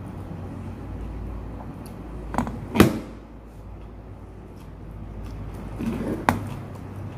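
Someone eating by hand from a plastic food container, over a steady low hum. Two pairs of sharp clicks stand out: one a little under three seconds in, which is the loudest, and another about six seconds in.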